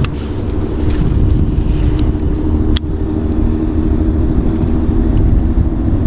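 Steady rumble of road traffic crossing the bridge overhead, with a single sharp click almost three seconds in.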